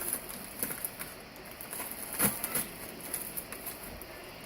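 Faint rustling and scattered light clicks of cardboard packaging being handled, with one sharper knock about two seconds in.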